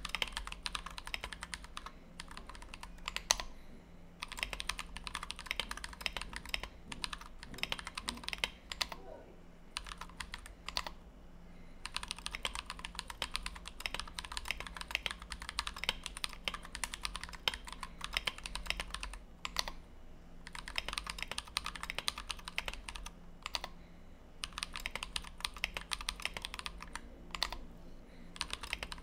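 Fast touch-typing on a custom 60% mechanical keyboard: Everglide Dark Jade switches, lubed with Krytox 205g0 and filmed, in a Tofu 60 case with a brass plate and PBT OEM keycaps. Rapid runs of keystrokes broken by several short pauses of a second or two.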